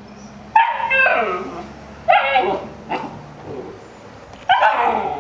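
Fila Brasileiro puppy giving three loud yelping barks, each sliding down in pitch.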